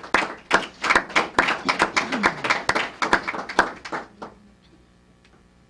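Audience applauding, the separate claps distinct, dying out about four seconds in.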